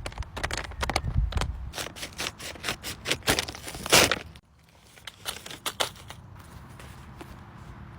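Paper packaging being crinkled and torn open: a dense run of crackles and rips, the loudest about four seconds in, then quieter scattered rustling.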